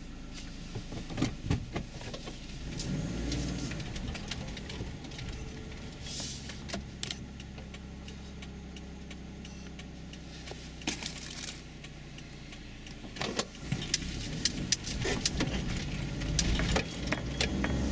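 Car engine idling, heard from inside the cabin, with scattered light clicks and rattles. From about thirteen seconds in, the car pulls away and the engine and road sound grow louder.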